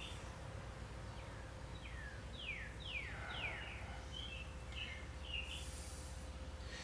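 Bird calls: a run of quick downward-slurred whistles about two to three seconds in, then several short chirps, over a faint low hum.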